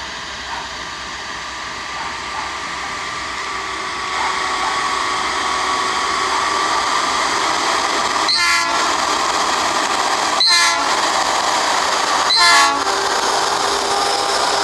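Hi-rail truck pulling railcars along the track, a steady rail noise building as it approaches. In the second half its horn sounds three short blasts about two seconds apart, the last the loudest.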